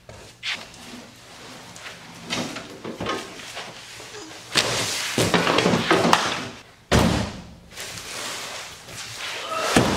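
A large cardboard box is scraped and slid out of a Jeep Wrangler's cargo area, rustling for a couple of seconds. The Jeep's rear swing gate slams shut about seven seconds in, and there is a thud near the end as the heavy box is set down.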